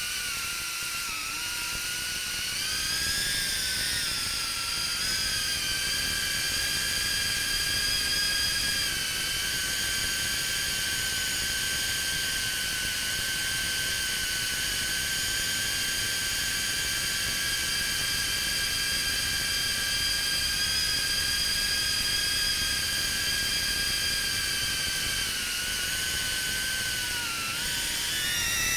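Small multirotor drone's brushless motors and propellers whining at a high pitch, heard from the drone's own onboard camera. The pitch climbs a few seconds in, holds mostly steady, then dips and climbs again near the end as the throttle changes.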